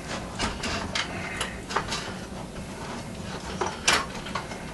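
Magnavox automatic record changer being handled and set into its mounting: irregular light clicks and knocks of its parts, with a somewhat stronger knock near the end.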